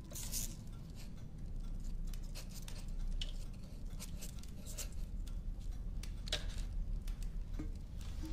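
Quill pen scratching on paper in many short strokes, over a low steady hum.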